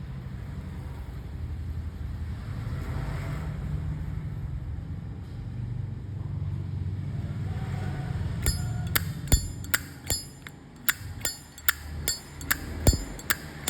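Zippo lighter clacking as its lid is flipped open and snapped shut again and again: sharp metallic clicks with a brief ring, about two a second, starting about eight seconds in. Before that there is only a steady low rumble.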